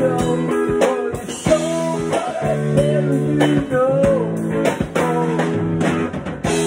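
A live band playing a blues-rock song: strummed guitar and a drum kit, with a woman singing.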